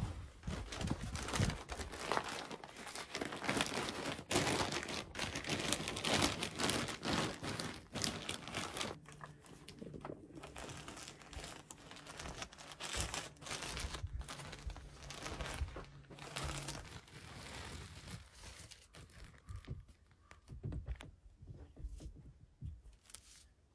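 Insulation batts and their plastic wrapping being handled: crinkling, rustling and tearing with scattered small knocks. It is busiest for the first nine seconds or so, then sparser and quieter.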